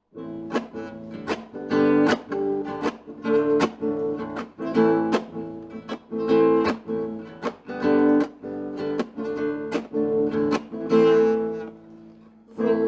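Acoustic guitar strummed in a steady rhythm, about two strokes a second, playing an instrumental introduction to a song; it dips briefly near the end.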